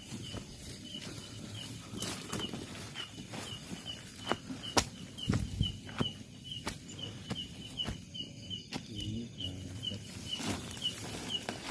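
Footsteps and rustling through undergrowth, with irregular snaps and crackles of twigs and leaves. Behind them a steady high chirp repeats about three times a second.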